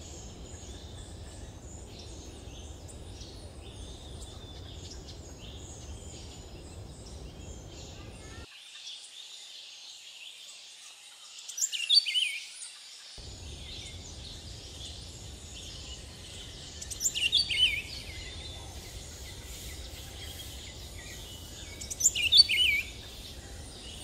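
Tropical rainforest birds: a steady background of high chirping, with one louder bird call given three times, about five seconds apart.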